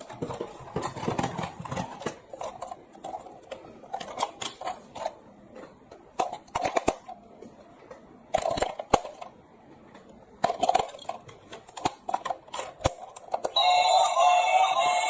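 Scattered clicks, clacks and rustling of toys being handled. A tune starts about a second and a half before the end.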